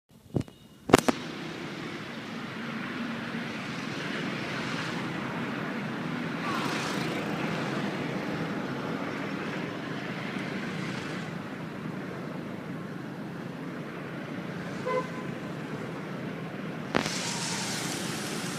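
Steady outdoor background noise, an even hiss and hum, with two sharp clicks about a second in, a brief pitched toot about fifteen seconds in, and another click near the end.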